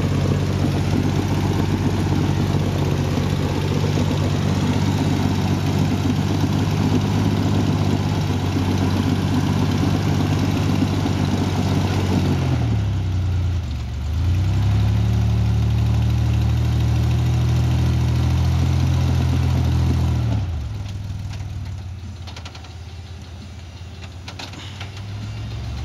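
Off-road 4x4's engine held at steady revs under load while crawling a rock ledge. About halfway through the revs sag and dip, then come back up. Near the end the engine drops back to a quieter idle.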